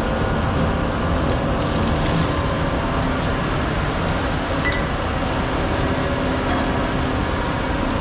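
Concrete mixer truck's diesel engine running steadily, with an even wash of noise over it.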